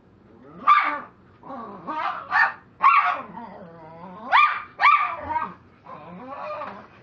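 A dog barking, about six loud barks over a few seconds, followed by quieter barks near the end.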